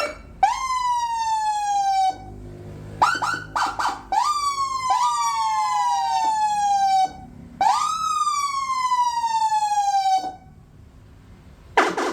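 Electronic vehicle siren sounded in separate bursts. Each tone jumps up and then slides slowly down in pitch over one to two and a half seconds, four times, with a couple of quick chirps about three seconds in.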